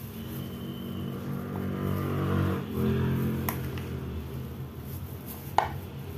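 An engine running, building to its loudest about halfway and then easing off, over a metal spoon stirring crumbly wingko dough in a plastic bowl. One sharp clack comes near the end.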